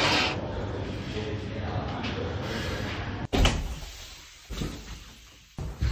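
Room noise with faint voices, then a loud knock and a few short thumps, like a door banging.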